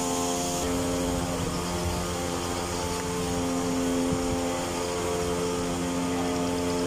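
Small engine of a backpack power sprayer running at a steady speed, an unbroken drone at an even pitch.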